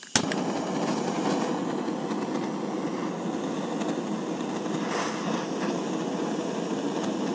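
Handheld gas torch lit with a sharp click just after the start, then burning steadily with an even rushing hiss as it heats the steel sleeve of a shaft for a hot press fit.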